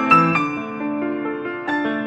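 Background piano music: single notes and chords struck a few times a second, each ringing on as it fades.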